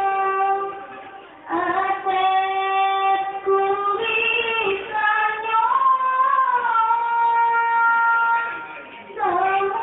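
A high voice singing a sholawat, an Islamic devotional song in praise of the Prophet, in long held notes that glide from one pitch to the next, with short breaks for breath about a second in and near the end.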